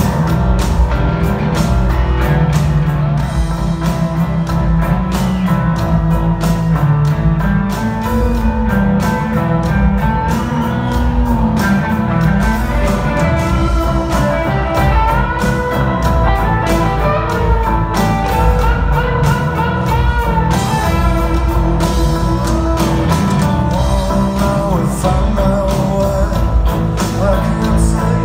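Rock band playing live: distorted electric guitars, bass and drums, with a voice singing.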